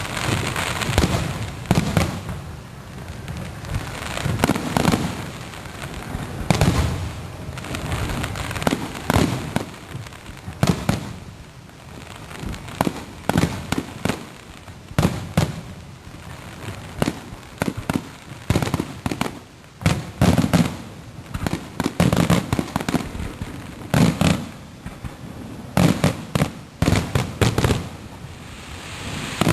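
Aerial fireworks display: shells bursting one after another, sharp bangs coming singly and in rapid clusters, with a low rumble between them.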